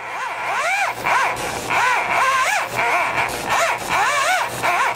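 Electric drill on the crankshaft pulley bolt cranking a VW 36 hp air-cooled flat-four by hand. The drill motor's whine rises and falls in pitch again and again as it labours to turn the engine. The engine does not fire.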